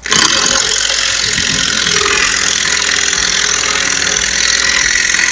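Kinswood 20V brushless cordless impact wrench hammering steadily as it drives a 1/2-inch lag screw into a wooden post.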